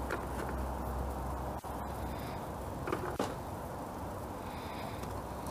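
A few faint clicks and a light knock from a screwdriver and its bit being handled, over a steady low background hum.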